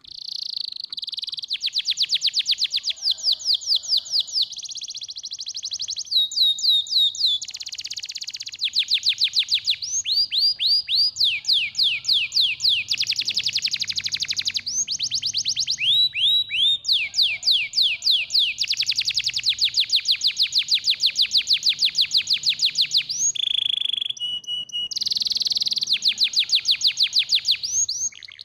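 Domestic canary singing a long, nearly unbroken song of fast trills. Each phrase is a quick run of the same note repeated many times a second, often sweeping downward, and the bird switches to a new phrase every second or two.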